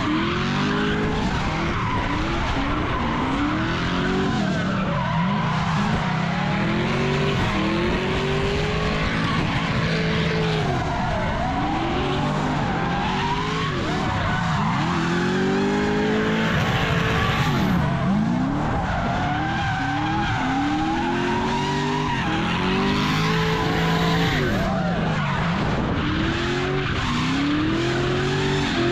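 Drift car's engine revving up and dropping back over and over, roughly every two seconds, while its rear tyres skid and squeal through a smoky slide.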